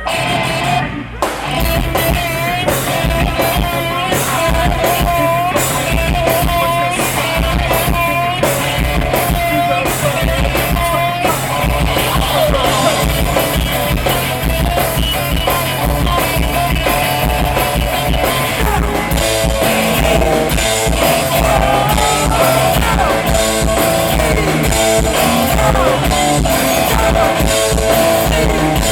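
Live rock trio of electric guitar, bass guitar and drum kit playing loud. After a short break about a second in, the band comes back in.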